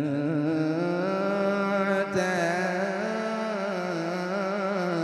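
A man's voice reciting the Quran in the melodic tajweed style, drawn out into long, wavering, ornamented notes sung into a microphone, with a brief break about two seconds in.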